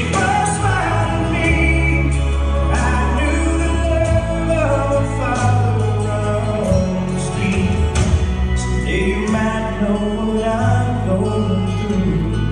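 Slow country ballad with a singer and band, played over loudspeakers in a large hall.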